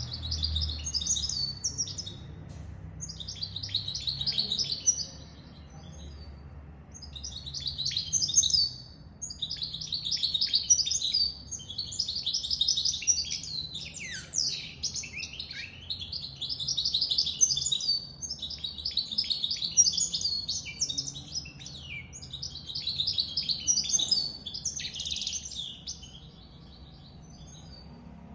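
Goldfinch mule, a goldfinch × canary hybrid, singing: a run of fast, high twittering song phrases, each a couple of seconds long, with short pauses between them.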